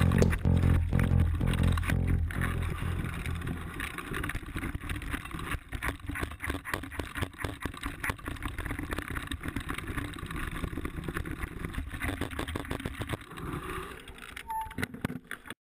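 Mountain bike ridden down a rough trail, heard from a helmet camera: wind noise and the bike rattling and knocking over bumps, with a brief squeak near the end and the sound cutting off suddenly. Background music fades out over the first few seconds.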